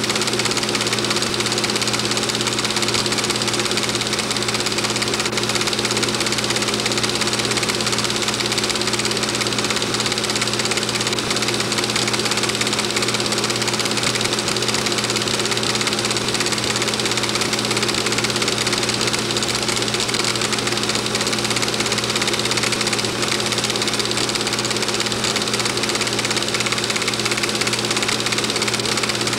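Film projector running steadily: an even mechanical whirr with a constant low hum, unchanging throughout.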